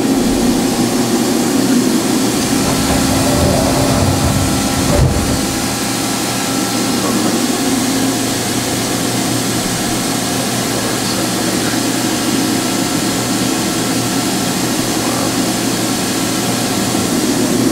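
1995 Toyoda CNC horizontal machining center running with a steady mechanical hum. A heavier low rumble in the first few seconds ends with a clunk about five seconds in.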